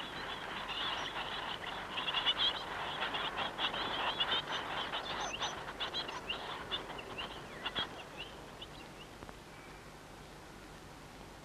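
Chickadees calling: a rapid run of high, thin chirps with rustling, which thins out and stops about eight seconds in.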